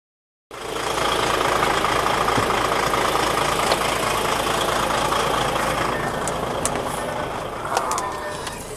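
Semi-truck's diesel engine idling steadily, starting abruptly about half a second in. A few sharp clicks come near the end.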